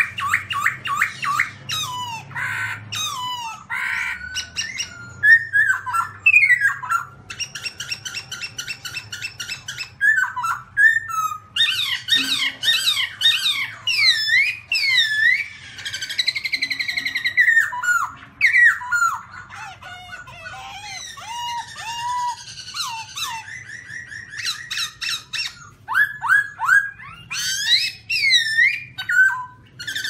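Black-throated laughingthrush singing a long, varied song of loud swooping whistles, rapid repeated notes and trills, in phrases broken by short pauses.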